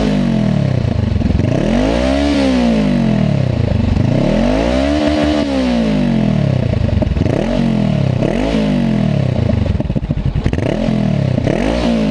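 Honda CBR motorcycle engine revved over and over, each rev climbing and falling back, with a longer held rev about halfway through. It runs warm through an exhaust whose dB killer baffle has been drilled with about twelve extra holes for a louder note.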